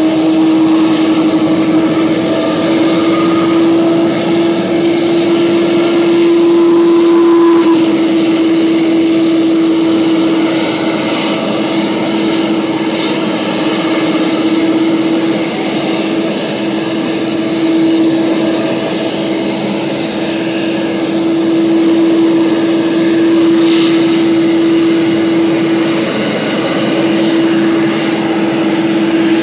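Boeing 777-300ER's GE90 turbofan engines running, a steady jet drone carrying one strong constant tone, with a fainter whine rising slowly over the first several seconds.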